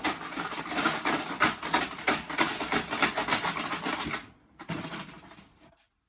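Numbered raffle tokens rattling and clattering in a container shaken hard for about four seconds, then again briefly after a short pause, to mix them before a draw.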